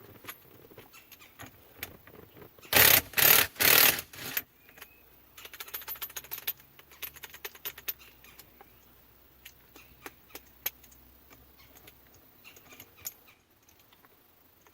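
Impact wrench firing in several short bursts about three seconds in, breaking loose and running off the steering wheel's center nut. Light metallic clicks and rattles follow as the socket and nut are handled.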